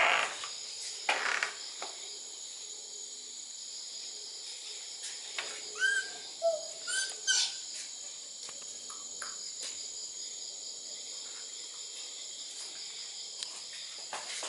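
Crickets and other night insects chirring steadily in a high, even drone. A few short chirping calls that glide in pitch come in about six to seven and a half seconds in.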